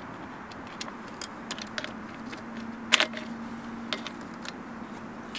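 Light metallic clicks and rattles of a car window regulator's parts being handled and fitted together by hand, with one sharper click about three seconds in.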